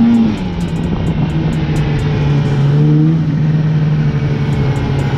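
Polaris Indy 550 two-stroke snowmobile engine running under way. Its pitch drops just after the start as the throttle eases, then holds steady at cruising revs.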